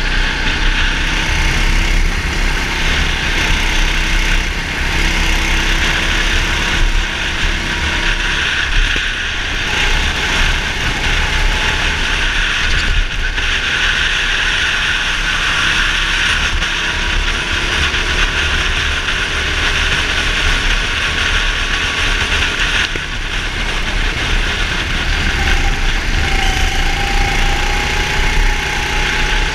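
Go-kart engine running at racing speed, picked up by an onboard camera, its pitch rising and falling with the throttle through the corners over a steady rushing noise.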